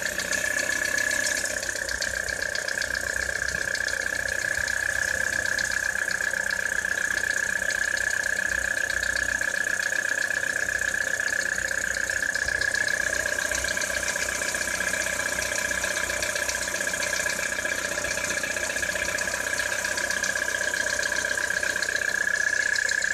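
2013 Citroën C4 engine idling in freezing weather with a steady, rapid knocking: the cold-weather engine knock the owner is showing. A high steady whine runs alongside it.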